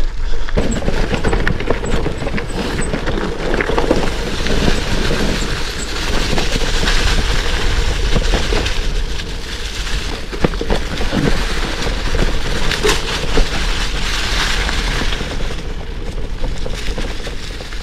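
Kona Rove LTD gravel bike riding over a rough, stony dirt track: its 43 mm Panaracer GravelKing tyres crunch and rumble over loose rocks, with constant irregular clicks and knocks from the bike jolting over stones, over a steady low rumble.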